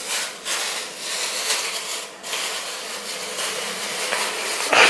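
Thin plastic bag rustling and crinkling as it is worked off a block of cheese by hand, in uneven bursts.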